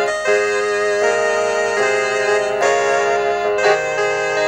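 Electronic keyboard played in slow held chords, the chord changing about once a second.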